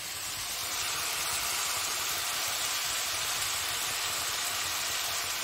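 Chopped vegetables and tomatoes sizzling steadily in a hot kadai over a gas flame.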